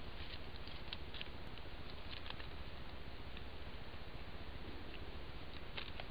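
Steady hiss of a trail camera's microphone, with scattered soft ticks and rustles of a black-tailed deer stepping and browsing in the forest-floor litter.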